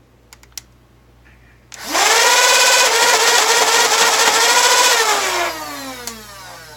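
Two light clicks, then the Nerf Demolisher's Meishel 2.0 flywheel motors on a 2S LiPo rev up with a rising whine, run loud and steady at full speed for about three and a half seconds, and wind down with a falling whine when released.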